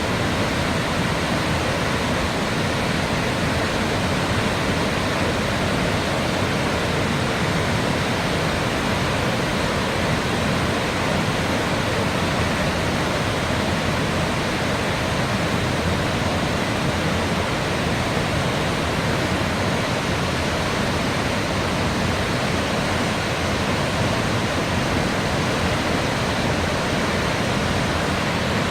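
Steady, even rush of a large waterfall, Cumberland Falls, pouring over its ledge.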